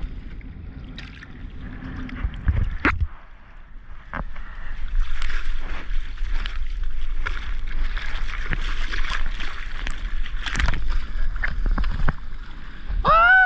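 Seawater sloshing and splashing around a surfboard on the ocean, with scattered small splashes at first. A denser, louder stretch of splashing runs from about five seconds in to about twelve. A short voiced exclamation comes at the very end.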